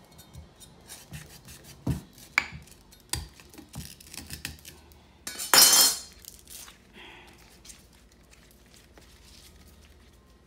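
Lemongrass pieces broken by hand and dropped into a volcanic stone mortar (molcajete) with ginger and garlic: scattered light knocks and clicks, with one louder rasping noise about five and a half seconds in.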